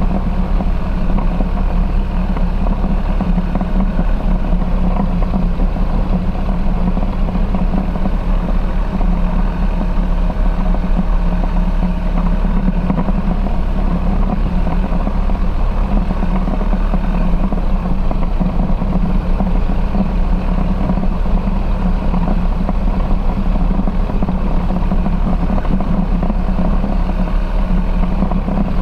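Foxbat light aircraft's engine and propeller running steadily at low power while taxiing, a constant engine hum with no change in pitch.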